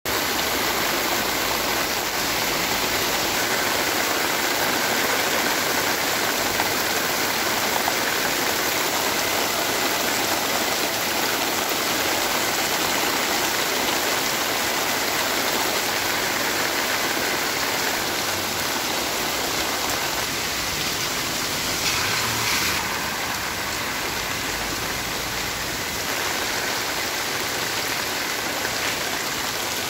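Heavy rain pouring down onto a flooded street: a steady, dense hiss of drops splashing into standing water.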